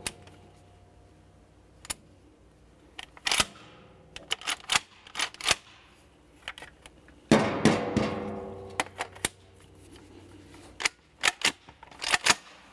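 Metallic clacks and rattles of a Mossberg 590M 12-gauge pump-action shotgun's slide and box magazine being worked by hand. There are two harder clacks, the second ringing on briefly. The action is running rough because the shell is catching on the magazine's feed lips and failing to feed.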